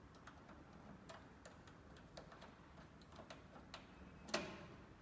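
Faint irregular clicks from a small screwdriver turning the screw of a PV input terminal block as a solar cable is clamped in, with one louder knock near the end.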